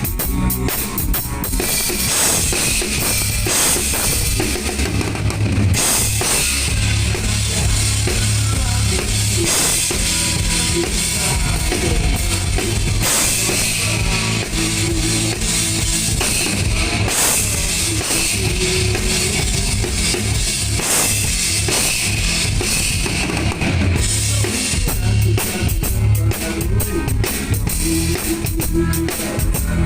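Rock band playing live, with the drum kit's bass drum and cymbals to the fore.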